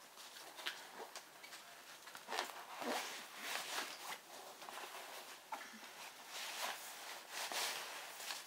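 Papers, a folder and the diaper bag's fabric rustling and scraping as the papers are pushed down into the bag's pocket, in a run of irregular swishes.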